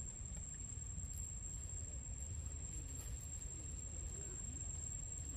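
Quiet forest ambience: a continuous high-pitched insect drone over a steady low rumble.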